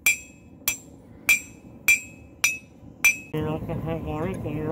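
Farrier's hammer striking a steel horseshoe on the anvil horn: six sharp, ringing blows about 0.6 s apart. After about three seconds the blows stop and a loud, held sound with a wavering pitch takes over.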